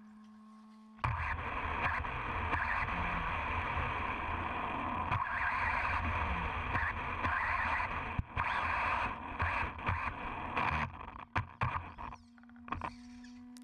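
Radio-controlled car driven hard across a soaked dirt track, heard from a camera on its chassis: tyres churning and splashing through wet mud and leaves over the motor's whine. Toward the end the run breaks into short bursts of throttle with knocks from the chassis. A steady hum is heard while the car sits still at the start and after it stops.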